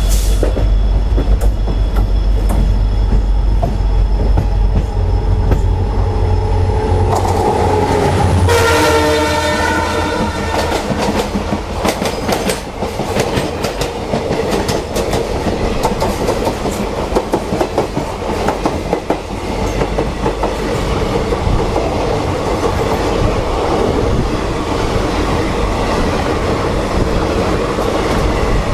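EMD WDP4 diesel locomotive passing at speed, its two-stroke diesel engine giving a deep drone. About seven seconds in it sounds its multi-tone horn for about three seconds. The drone then gives way to the steady rush and clatter of the coaches' wheels over the rail joints.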